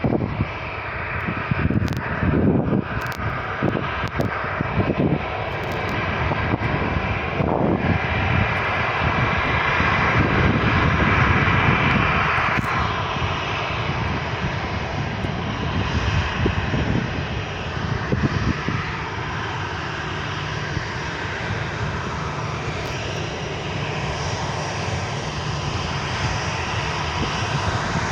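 Boeing 737-800's CFM56-7B jet engines running at takeoff power, a steady loud roar, with uneven low thumps through the first several seconds.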